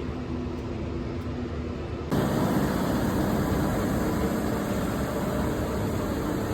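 Harvest machinery engine running with a steady drone. About two seconds in, the sound jumps suddenly to a louder, hissier machine noise.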